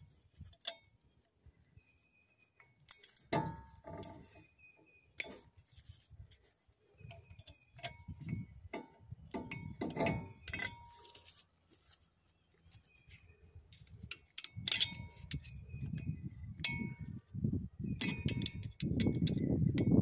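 Scattered metal clicks and clinks, with brief ringing, as needle-nose pliers and a flat-blade screwdriver pry thin steel retaining clips off the wheel studs of a brake rotor. Lower scuffing handling noise grows over the last few seconds.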